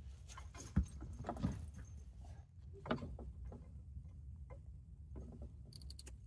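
A few scattered light clicks and knocks, the sharpest about a second in, as steel pliers pick and tug at a knot in synthetic winch rope wound on the winch drum.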